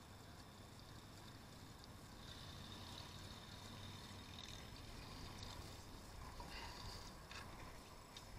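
Faint background of water noise around a small boat, with a couple of light clicks near the end.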